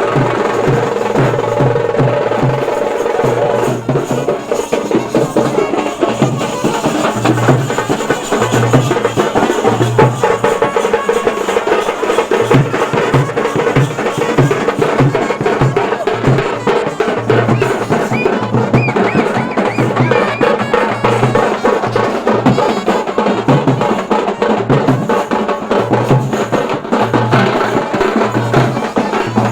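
Loud, percussion-driven music: fast, dense drumming over a steady, regular low beat.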